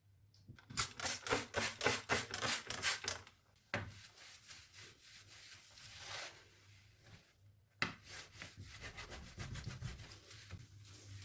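Brisk scrubbing, a brush or sponge rubbed back and forth over a surface in quick strokes about five a second. It then goes on as softer, slower rubbing, broken by two sharp knocks.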